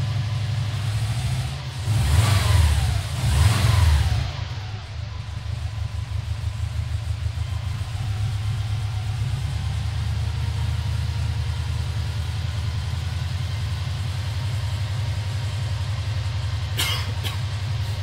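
Subaru Legacy's boxer engine idling through a newly fitted aftermarket exhaust, blipped twice about two and three and a half seconds in, then settling back to a steady idle. A brief sharp clatter near the end.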